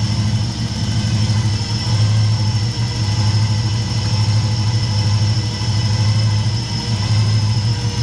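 Holden VP Commodore's 5.0-litre V8 idling steadily with a newly fitted Gilmor belt accessory drive, a thin steady high whine over the engine note.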